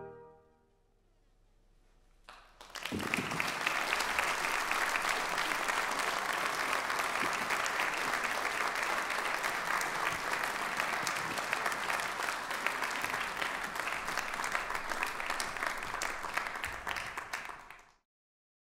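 The final brass chord dies away at the very start, then after a short hush an audience breaks into applause about two and a half seconds in, steady clapping that cuts off abruptly near the end.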